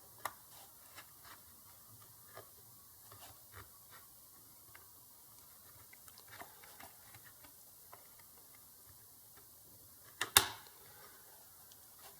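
Scattered light clicks and taps as the encoder's LED and photodiode are worked out of their plastic retainer on an overhead door opener circuit board, with one sharp click about ten seconds in.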